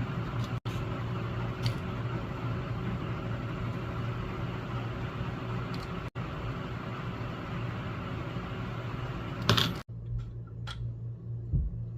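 Steady electrical hum with a hiss over it, the mains buzz of a transformer-type soldering gun switched on. There is a short louder rasp near the end, after which the hiss drops and the hum carries on with a few faint ticks.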